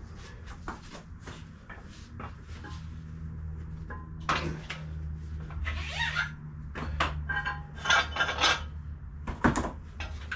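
Metal gym equipment being handled: a run of light clicks and knocks with several sharper metallic clanks, one ringing briefly, over a steady low hum.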